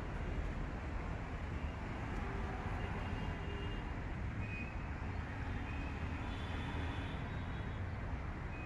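Steady outdoor background noise: a continuous low rumble under a hiss, with a few faint short high tones.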